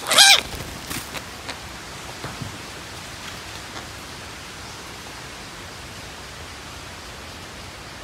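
Parakeets giving a loud harsh squawk twice at the start, then a few shorter, fainter calls over the next few seconds, over a steady hiss.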